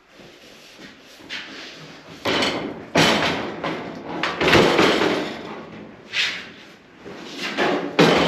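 A heavy custom truck bed being shifted and lifted off its frame by hand: a run of irregular knocks, thumps and scrapes of wood and metal.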